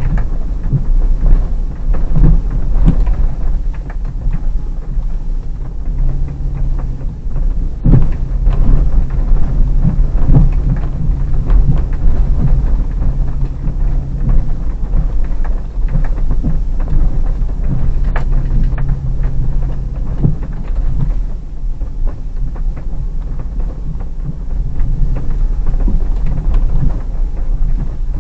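Hyundai Terracan's 3.5 V6 engine running at low revs, heard from inside the cabin as the SUV crawls over a rough snow-covered track. There is a heavy, steady low rumble, an engine hum that rises and fades several times, and frequent short knocks and rattles as the vehicle goes over bumps.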